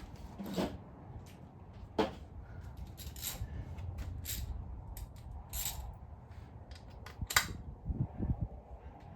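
Metal hand tools and sockets clinking and knocking against engine parts during an engine teardown: irregular sharp clanks, a few ringing briefly, the loudest a little after seven seconds in.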